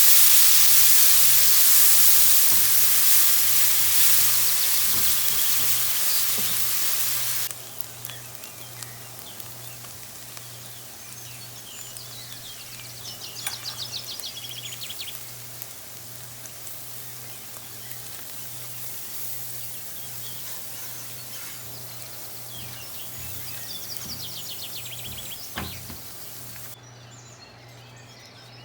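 Food sizzling in a hot frying pan, cutting off abruptly about seven seconds in. After that a quieter background remains, with a steady low hum and twice a short run of rapid bird chirps.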